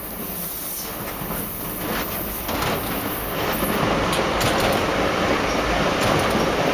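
Passenger train rolling along the track, heard from its rear end: a steady rumble of wheels on rails that grows louder about halfway through, with sharp clicks over the last few seconds.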